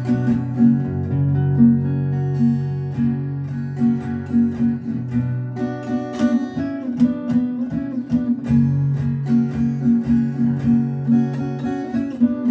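Acoustic guitar strummed in a steady rhythm in an instrumental passage, with low notes ringing under the strokes.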